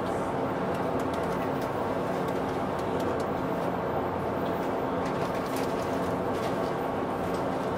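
Express passenger boat's engines droning steadily while underway, a constant low hum with a few faint clicks.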